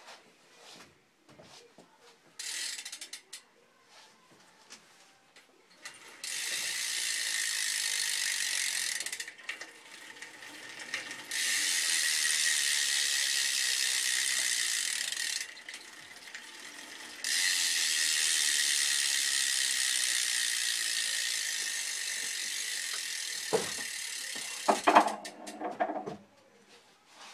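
Stock Subrosa rear cassette hub with an unsealed 9-tooth driver, clicking rapidly and decently loud as the rear wheel freewheels: a short run, then three long runs, the last slowly fading, with a few knocks near the end. The owner says it makes a different click from the one it should and skips under pedaling, and thinks it needs replacing.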